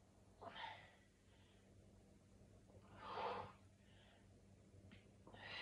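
A woman's breathing during push-ups: three quiet, hissy breaths about two and a half seconds apart.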